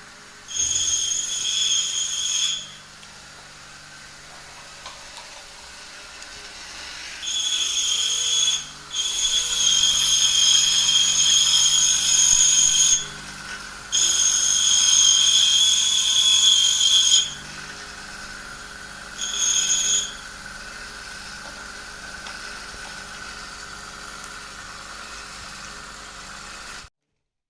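High-pitched electric whine that switches on and off about five times, in bursts of one to four seconds, over a faint steady hum.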